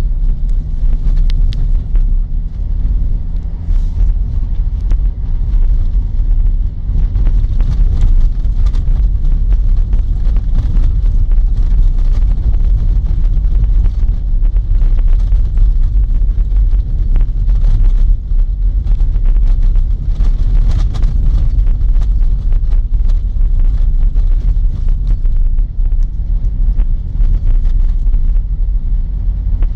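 Car driving over snow-covered road, heard from inside the cabin: a steady low engine and road rumble with some wind noise.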